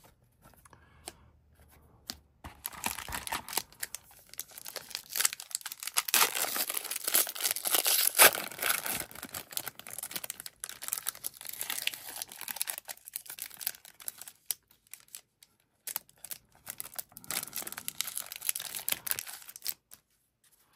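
A trading card pack wrapper being torn open and crinkled. It starts about two seconds in, is loudest in the middle and stops just before the end.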